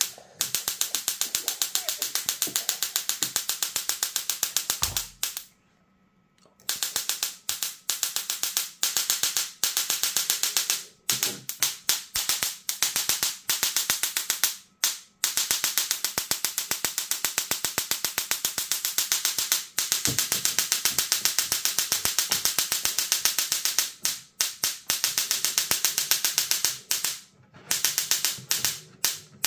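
Shkalacar music Tesla coil's spark discharge buzzing and crackling, a harsh, rapid run of clicks. It stops and starts in stretches, with short breaks and one longer pause about five seconds in.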